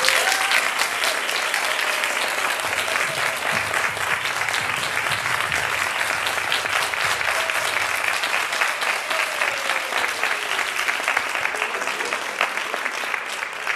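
Audience applauding: many hands clapping at once, starting suddenly and holding steady.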